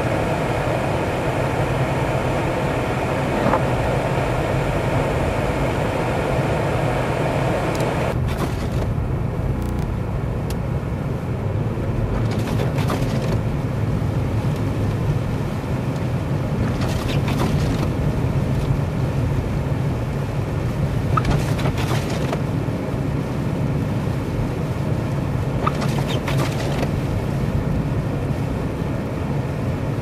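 Inside a moving car's cabin on a snowy road: steady engine and tyre rumble. A higher hiss cuts off suddenly about eight seconds in, and after that a brief swish comes every four to five seconds.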